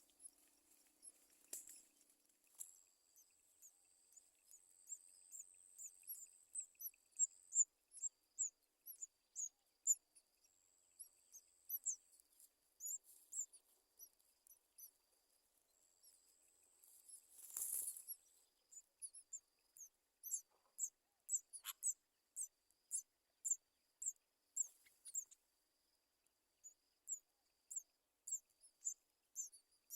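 Nestlings cheeping: faint, very high-pitched begging peeps, with a few drawn-out squeals early on, then a steady run of about two or three peeps a second. A brief rustle a little past halfway.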